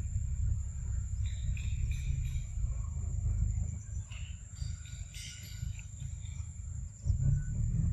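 Forest ambience: a steady high-pitched insect drone with scattered short chirps from insects or birds, over a loud low rumble.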